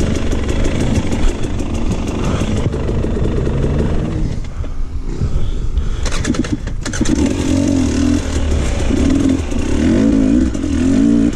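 Dirt bike engine running and revving unevenly, falling off about four seconds in. A few sharp knocks follow, and the engine then runs on steadily at low revs.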